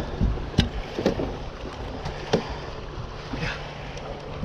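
Wind on the microphone over a steady low hum from the fishing boat, with a few sharp knocks and taps on the boat.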